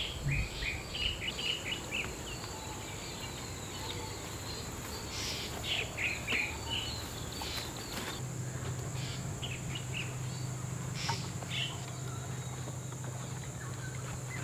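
Birds chirping and calling in short repeated phrases over a steady high-pitched insect drone. A low steady hum comes in about eight seconds in.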